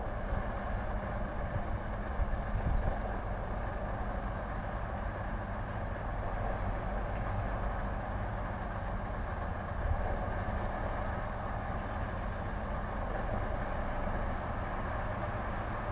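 Locomotive approaching slowly in the distance: a steady low rumble with a hiss over it, and no distinct beats.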